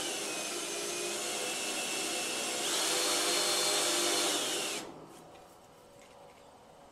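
Handheld power drill boring a hole into the steel tongue of a lawn cart with a freshly swapped bit: the motor whine sags under load, picks up speed again a little before the 3-second mark, then winds down and stops about 5 seconds in.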